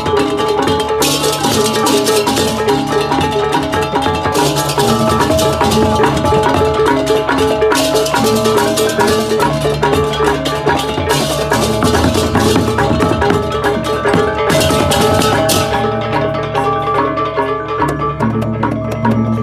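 Balinese gamelan music: metal-keyed percussion playing busy interlocking patterns over drums, with stretches of bright cymbal-like crashes coming and going.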